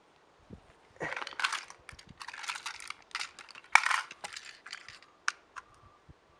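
Handling noises of a small plastic toy train being held and fiddled with: irregular rustling and clacking, loudest about four seconds in, then a couple of sharp clicks as a screwdriver is set to the battery-cover screw.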